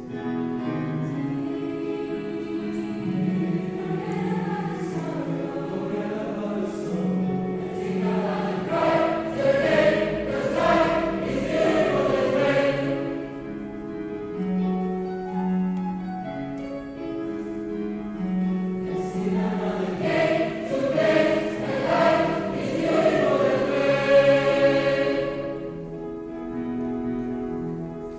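A choir singing a slow piece in held notes, swelling to a louder climax twice and easing off toward the end.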